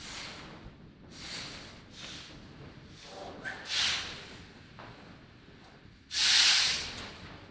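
Sound installation playing short, separate bursts of hissing noise with quiet gaps between them. The loudest and longest hiss comes about six seconds in and lasts about a second.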